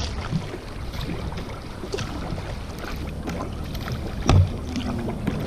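Sea kayak being paddled across calm sea: paddle blades dipping and splashing, water dripping, with scattered small splashes and a louder low thump about four seconds in.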